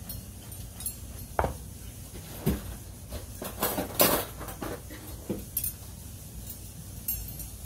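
Salad spoons clinking and knocking against a bowl while a shredded cabbage, onion and cucumber salad is tossed: irregular clinks, the loudest cluster about four seconds in.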